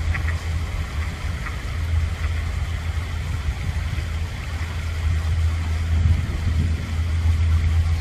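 Wind buffeting the microphone: a loud, fluttering low rumble with a few faint short ticks early on.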